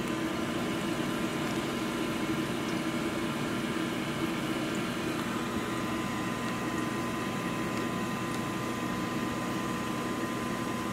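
Steady hum of an aquarium filter pump moving water.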